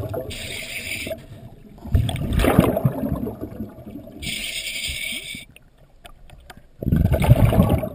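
A scuba diver breathing through a regulator: two hissing inhalations, each about a second long, alternating with bubbly, gurgling exhalations.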